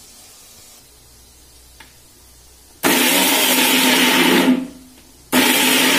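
Electric mixer grinder with a stainless-steel jar run in two short bursts, grinding shallots, ginger and garlic into a paste; it starts about three seconds in, stops briefly, then runs again.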